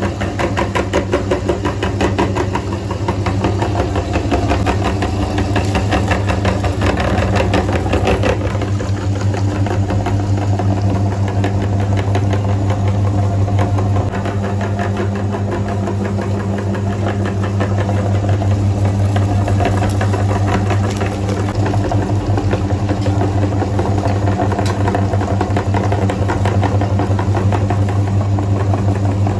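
Electric meat grinder running steadily with a strong low hum, its motor starting abruptly and keeping on without a break.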